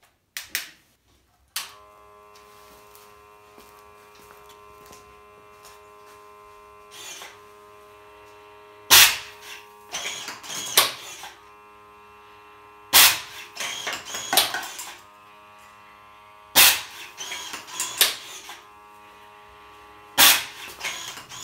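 Homemade steel wool firework launcher firing four times, about every three and a half seconds: each shot is a sharp blast of compressed air from its bottle reservoir, followed by a brief crackle from the burning steel wool. Under the shots, from about two seconds in, a small motor buzzes steadily: the launcher's pre-burner air pump.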